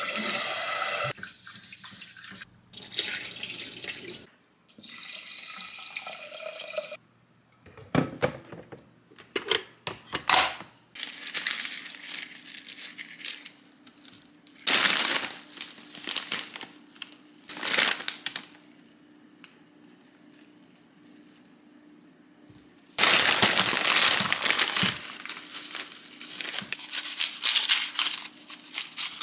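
Kitchen tap water running into a rice cooker's inner pot as rice is rinsed, over the first few seconds. Then a mesh net bag rustles as onions are taken out, with a few sharp knocks. Near the end a plastic bag crinkles loudly as potatoes are tipped from it into a ceramic dish.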